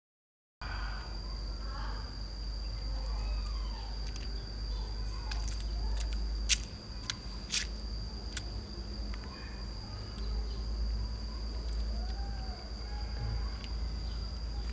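Outdoor ambience: a steady high-pitched insect drone over a low rumble, with a few sharp clicks about six to eight seconds in. Silent for the first half second.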